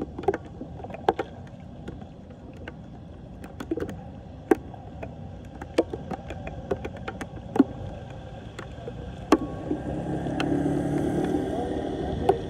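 Hands working in shallow floodwater over a clogged storm drain, scooping out debris with small sharp splashes over a steady wash of water and rain. Near the end a motorcycle engine grows louder as it rides through the flooded road.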